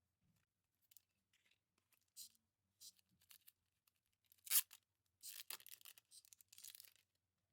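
Packaging being opened and handled: short scattered rustles and tearing sounds, a sharp snap about four and a half seconds in, then a couple of seconds of steady rustling.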